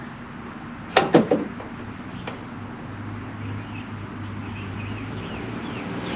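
A quick cluster of sharp knocks about a second in and another single knock a second later, then a steady low mechanical hum that slowly grows louder, with faint high chirps over it.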